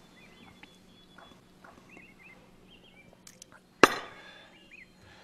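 A single sharp clink of a small porcelain liquor cup about four seconds in, ringing briefly. Faint bird chirps come and go in the background.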